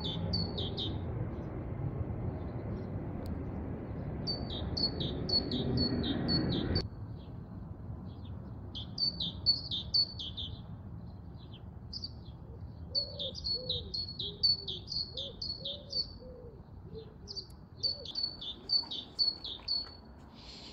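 A small songbird singing: repeated phrases of quick, high, downward-sliding notes, a few seconds each with short pauses between. A steady low background rumble runs underneath and cuts off suddenly about a third of the way through.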